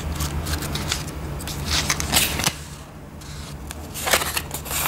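Pages of a small paper instruction booklet being flipped and rustled by hand, with louder swishes about two seconds and four seconds in.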